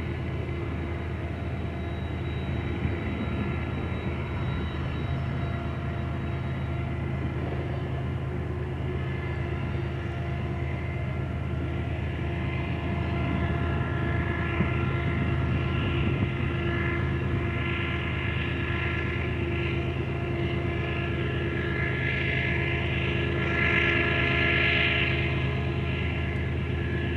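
Freight train of tank cars and boxcars grinding slowly uphill around a curve: a steady low drone with many held tones, and a higher-pitched grinding from the wheels that swells near the end.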